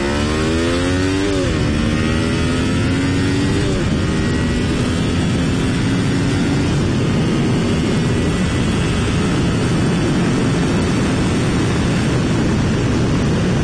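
1987 Honda VFR motorcycle's V4 engine accelerating, its pitch climbing and then dropping at two upshifts, about a second and a half and about four seconds in. After that the engine note pulls on more gently and is buried under steady wind rush on the helmet microphone.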